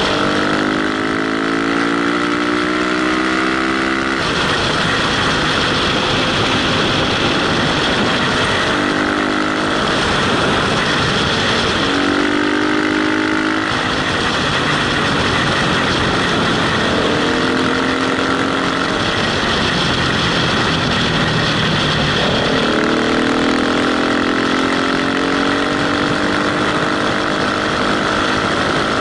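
Motorcycle engine under acceleration at road speed, its pitch climbing steadily in several long pulls that each break off suddenly at a gear change. A steady rush of wind on a helmet-mounted microphone runs underneath.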